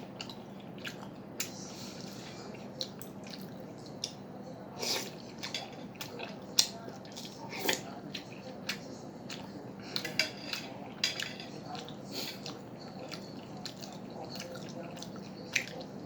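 Close-up eating of sujebi soup: scattered clicks of utensils against the bowl, with a few longer wet slurping and chewing sounds.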